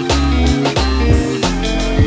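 Instrumental background music: a guitar-led tune over a bass line with a steady beat.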